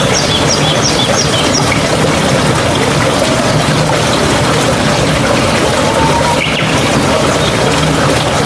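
Water rushing steadily, with birds chirping over it: a quick run of about six short high chirps in the first second, and a brief whistled note about six seconds in.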